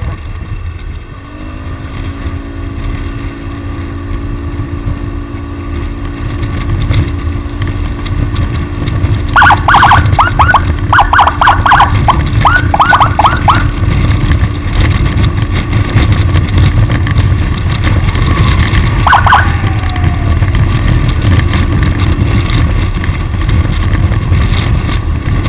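Motorcycle riding at speed, with heavy wind rumble on the microphone and a steady engine note. About ten seconds in, a rapid string of short rising chirps sounds for a few seconds, and a brief burst of them comes again near the end.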